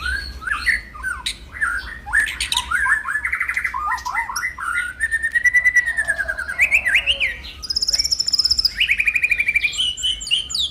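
A caged songbird singing a varied song of quick whistled notes, with a long smooth whistle about halfway through and rapid high trills near the end.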